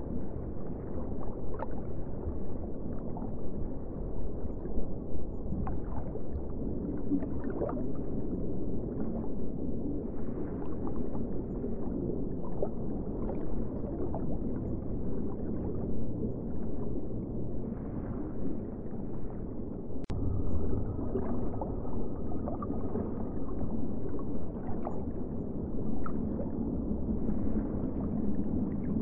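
Aquarium water and aeration noise: a steady low rumble of moving water with frequent small bubbling and gurgling pops. There is one sharp click about twenty seconds in.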